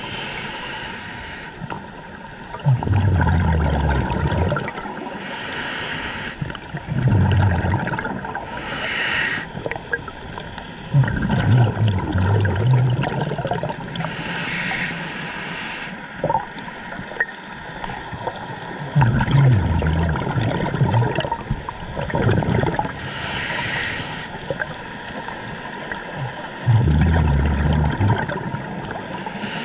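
Scuba diver breathing through a regulator underwater: five breaths, each a hissing inhale followed by a low bubbling rush of exhaled bubbles.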